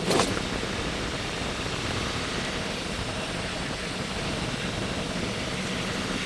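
Steady, even background noise, like a running car or a fan, with two or three brief sharp clicks at the very start as the fabric pet carrier is handled.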